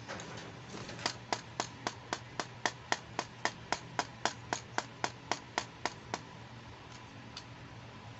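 Sharp, even plastic clicks, about four a second for some five seconds, from fingers tapping on a small plastic toy compact case.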